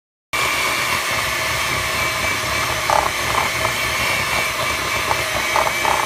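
Electric hand mixer starting abruptly about a third of a second in and running steadily with a high whine as its beaters churn crumbly cookie dough in a glass bowl. Brief clattering knocks come about halfway through and again near the end.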